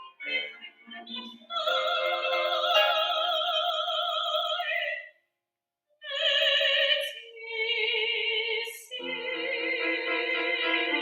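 Soprano singing an operatic Broadway ballad with piano accompaniment. It opens with short notes, then a long held note with wide vibrato, then a pause of about a second. Two shorter phrases follow, and from about nine seconds in a sustained passage runs over fuller accompaniment.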